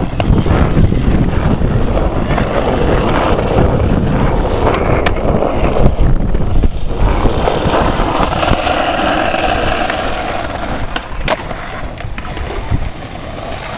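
Skateboard rolling on rough asphalt: a loud, steady rumble of the wheels, with a few sharp clicks, fading near the end.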